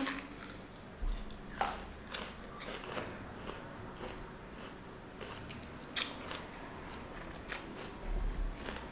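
Raw jicama being bitten and chewed, a crisp crunch every second or so at an irregular pace, the sharpest about six seconds in.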